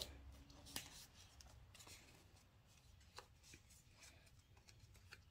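Near silence, with faint rustling and a few light taps of small pieces of paper cardstock being handled on a table.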